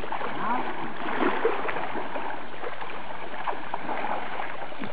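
Steady splashing and sloshing of river water churned up by young Asian elephants and their handlers wading and scrubbing. A few short rising-and-falling calls come in the first second and a half.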